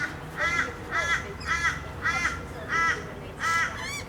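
A bird calling in a quick series of about seven short, evenly spaced calls, roughly two a second.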